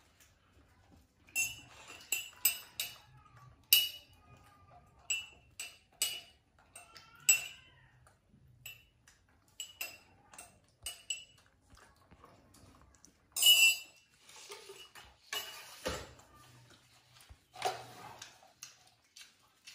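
Tableware clinking as a ceramic mug and a metal bowl are handled: many sharp, ringing clinks at irregular intervals, with a longer clatter a little over halfway through and a dull knock soon after.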